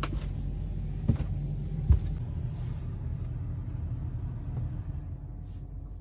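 Steady low rumble and hum of a boat's machinery heard inside the cabin, with two sharp knocks about one and two seconds in.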